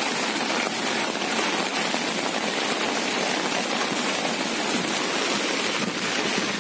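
Heavy rain falling and a flooded, fast-flowing river rushing by, heard together as a steady, even wash of water noise.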